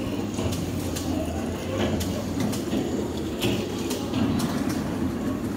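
Ride-on miniature railway train rolling along the track: a steady low rumble of the wheels, with scattered clicks at uneven spacing.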